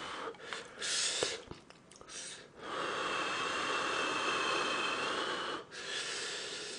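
A man blowing on and slurping hot ramen noodles through pursed lips: a few short airy hisses, then one long slurp of about three seconds with a thin whistle in it, and another short slurp near the end.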